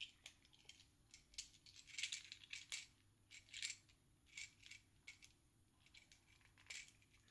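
Faint, scattered clicks and light rattles of small plastic toy parts being handled, with long quiet gaps between them.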